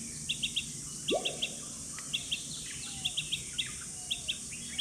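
Wild birds chirping: short high notes in quick groups of two or three, repeated throughout over a steady high hiss, with a short rising whoosh about a second in.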